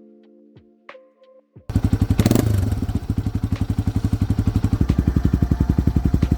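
Fading music notes, then about a quarter of the way in a Yamaha TW200's single-cylinder four-stroke engine cuts in loud, idling through its exhaust with a fast, even beat of about a dozen pulses a second. There is a brief blip of the throttle soon after it starts.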